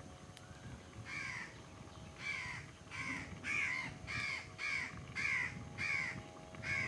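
A crow cawing over and over, about two calls a second, starting about a second in, over a faint steady hum.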